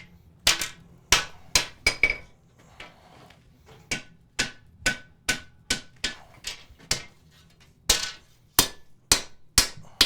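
Hammer striking a flat steel bar on an anvil: a steady series of about twenty sharp blows, roughly two a second, several with a short metallic ring.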